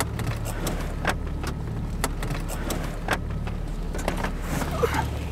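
Steady low engine and road hum inside a police patrol car's cabin, with scattered clicks and rattles, a few sharper ones about one, two and three seconds in.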